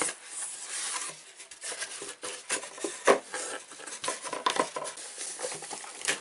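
Snack packaging and paper being handled while a subscription box is unpacked: irregular rustles and light clicks, with one louder knock about three seconds in.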